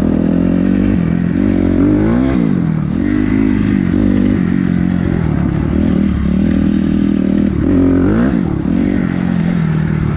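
Off-road motorcycle engine running while riding a trail, revving up and easing off twice, about two seconds in and again near the end.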